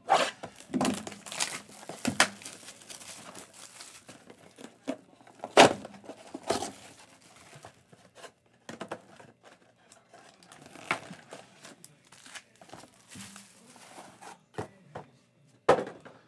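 Plastic shrink wrap crinkling and ripping as a sealed cardboard box of trading cards is unwrapped and its cardboard torn open. There are several sharp rips, the loudest about five and a half seconds in, among steady crinkling.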